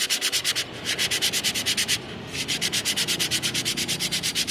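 New motorcycle front disc brake pad being rubbed back and forth on sandpaper to flatten its friction surface: quick, even rasping strokes in three runs, with short pauses a little after the start and at about two seconds.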